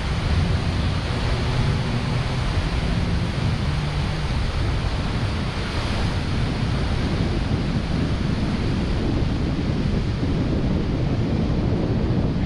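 Wind buffeting the microphone as a low rumble, over the steady rush of a fast, swollen river flowing below the bridge.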